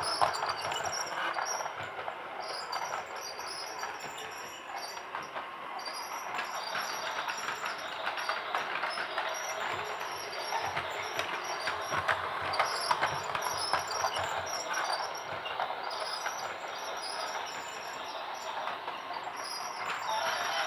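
Toy train running: a steady clattering whir sprinkled with small clicks.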